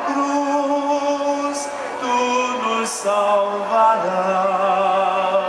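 Latin Passion motet sung in long held notes, the voices stepping to a new pitch every second or so.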